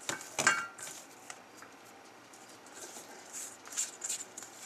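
Hands kneading a flour-and-fat roux in a stainless steel mixing bowl: a metallic clink with a short ring from the bowl about half a second in, then soft squishing. Near the end come a few short scrapes as a spatula wipes the dough off the fingers.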